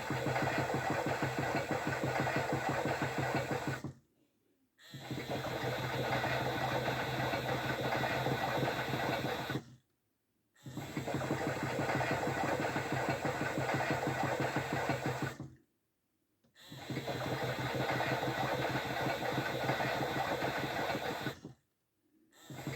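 A toy washing machine's small electric motor turning the drum in runs of about five seconds, stopping dead for about a second between runs, the start-stop rhythm of a wash cycle.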